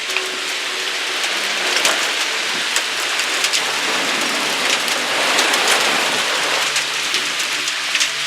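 Heavy rain pouring down hard, with many sharp individual taps of drops striking, growing a little heavier after the first second.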